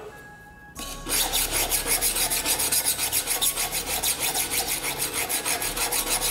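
Steel knife blade scraped rapidly back and forth across a coarse diamond sharpening stone (about 320–400 grit), a steady rasping of about five strokes a second that starts about a second in. The edge is being ground back in to raise a burr.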